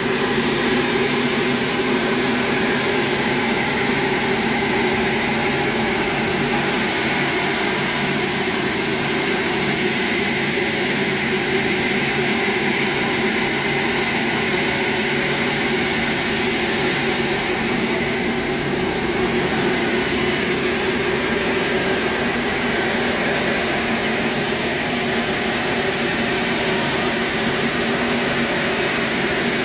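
A large machine running steadily: a constant hum of several steady tones over an even hiss, with no change in load.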